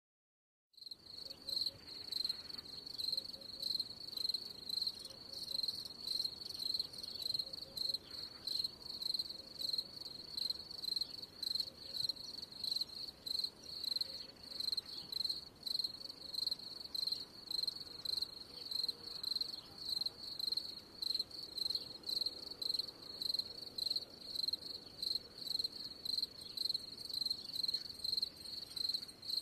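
Cricket chirping in a steady, even rhythm at a high pitch, about two to three chirps a second, starting just under a second in.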